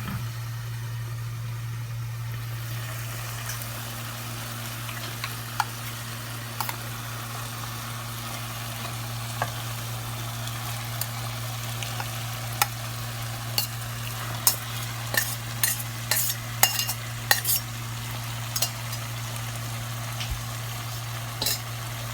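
Marinated chicken sizzling in a pan of onion-tomato masala while a spoon stirs it, with sharp scrapes and clinks of the spoon against the pan that come thick and fast past the middle. A steady low hum runs underneath.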